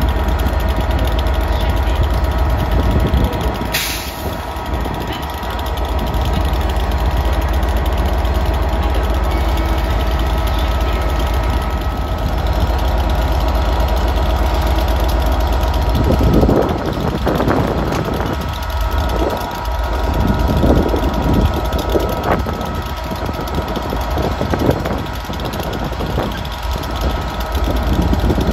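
Diesel freight locomotive engine running, a steady deep rumble with fixed hum tones and a single sharp click about four seconds in. Just past halfway the deep rumble drops away and gives way to an uneven, pulsing rumble.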